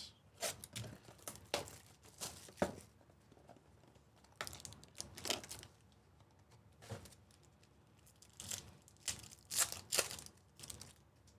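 A trading-card box being opened and foil card packs crinkling and tearing open by hand, in several short spells of rustling.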